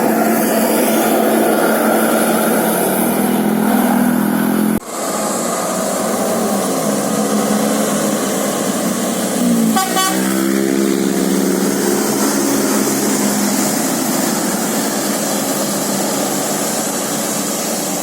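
Bus basuri musical telolet horn sounding a tune of long held notes, with a quick run of changing notes near ten seconds in. The sound breaks off sharply about five seconds in and picks up again at once.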